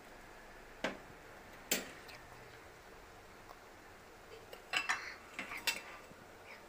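Metal kitchen utensils and cookware clinking: two sharp single clicks in the first two seconds, then a quick cluster of clinks with a little ringing about five seconds in.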